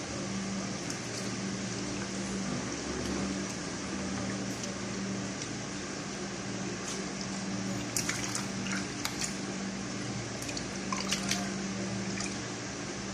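Wet squelching and water sounds as an octopus is handled and rinsed during cleaning, with a few sharp clicks about eight and eleven seconds in. A steady electrical hum runs underneath.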